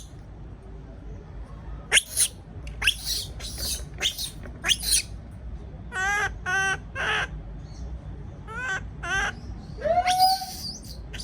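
Baby monkey calling out in about a dozen short, high-pitched cries and squeals, some with a wavering pitch and one longer cry near the end that rises and then holds. These are the fearful distress calls of an infant left alone in its cage.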